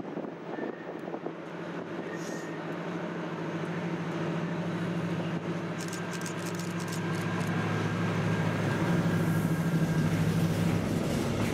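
Diesel locomotive hauling tank wagons, its engine drone growing steadily louder as it approaches and passes. Wheels begin clicking over the rail joints about halfway through.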